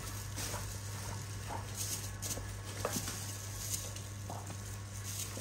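Baby monkeys scrambling over a quilted blanket and being handled: soft rustling and patter with scattered small clicks, a few short faint squeaks, and a steady low hum underneath.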